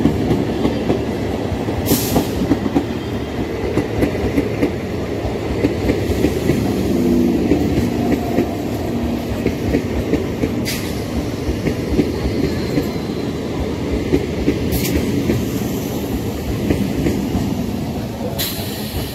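Electric multiple unit (EMU) local train passing close at speed: a steady rumble with a fast clickety-clack of wheels over rail joints. Four brief sharp high hisses come about 2, 11, 15 and 18 seconds in, and the sound eases a little as the last coach goes by near the end.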